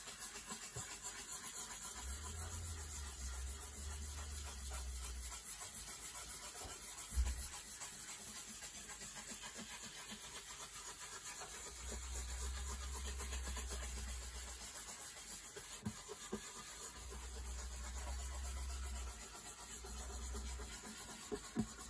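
A folded rag pad wiped and rubbed over a guitar's spruce top as deep red dye is worked in: faint, steady scuffing strokes, with a soft knock about seven seconds in.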